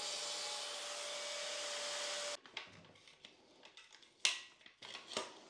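A steady rushing motor noise that stops abruptly a little over two seconds in, followed by quiet with scattered clicks and knocks of tools being handled, two of them sharper near the end.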